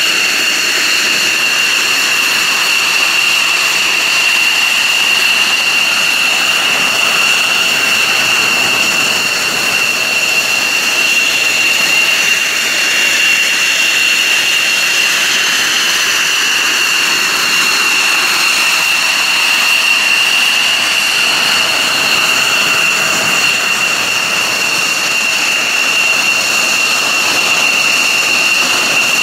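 F-16 fighter's Pratt & Whitney F100 turbofan running steadily on the ground, a loud, high-pitched whine over a rushing hiss, holding one pitch throughout.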